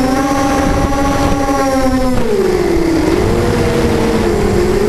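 Beecrazy Daredevil FPV racing quadcopter's electric motors and propellers whining in flight, heard from on board. The pitch holds steady, drops about two seconds in as the throttle eases, then rises back and levels off.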